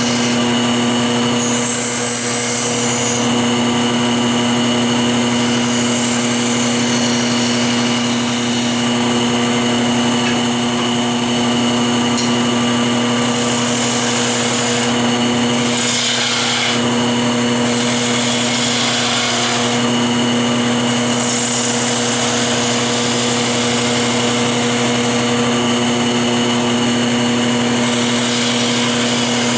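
Wood lathe running with a steady motor hum while a turning tool cuts the spinning hickory blank, the cutting hiss swelling and fading with each pass of the tool.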